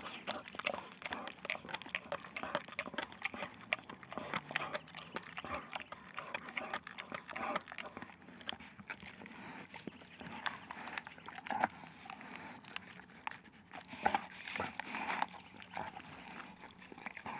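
A dog chewing on raw moose leftovers, gnawing and tearing at meat and bone with a dense, irregular run of crunches and clicks.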